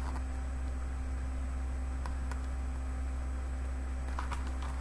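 Room tone with a steady low electrical hum, with a few faint ticks and light handling of the picture book's paper pages near the end.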